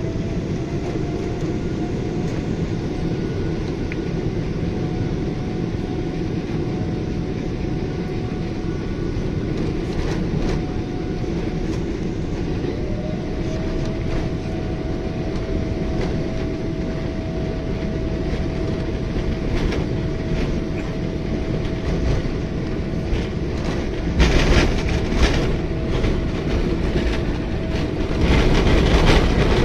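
Airliner cabin noise as the jet engines spool up for take-off: a steady engine roar with a whine that climbs in pitch near the start and steps up again about halfway through. The landing gear rumbles and thuds over the runway, loudest in two heavy bursts near the end.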